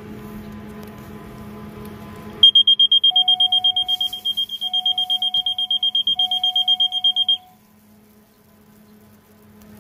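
Aircraft cockpit warning alarm: a loud high beep pulsing fast, about eight times a second, for about five seconds, with a lower tone sounding three long beeps beneath it, then cutting off.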